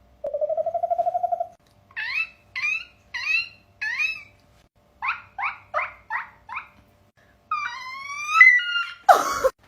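A person's mouth-made animal-like sounds. First comes a low rattling trill about a second long. Then come a group of four short high falling squeaks, a group of five lower falling squeaks, and a sliding whistle-like call, ending with a short, loud, harsh burst.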